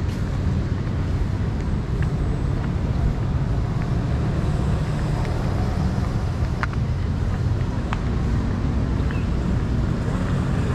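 Outdoor city street ambience: a steady low rumble of traffic, with a few faint ticks now and then.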